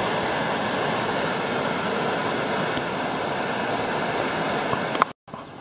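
Flood water from overflowing tanks spilling over a concrete weir edge, a steady rushing that cuts off abruptly about five seconds in.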